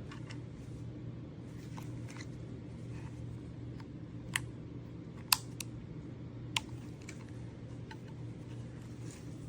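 Steady low hum with a few sharp clicks, the loudest a little past the middle.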